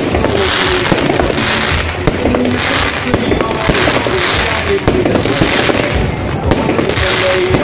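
Fireworks display: aerial shells banging and crackling in a dense, continuous barrage, with music playing underneath.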